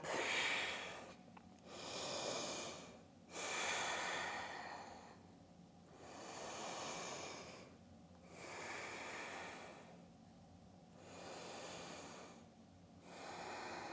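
A woman breathing slowly and deeply while holding a yoga forward fold: about seven long, audible inhales and exhales, each one to two seconds, with short pauses between, the first few a little louder.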